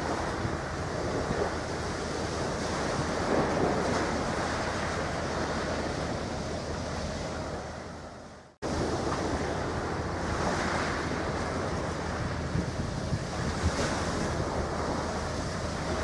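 Wind rushing over the microphone, a steady noise with no engine tone or distinct knocks; it fades out and cuts back in about halfway through.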